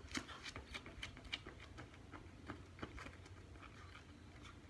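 Running footsteps of athletic shoes on concrete, a quick run of light slaps that grows fainter as the runner sprints away.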